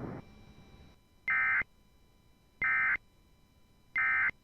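Three short bursts of Emergency Alert System SAME data tones, about a second apart: the end-of-message code that closes a weather-radio alert. Faint radio hiss cuts off just at the start.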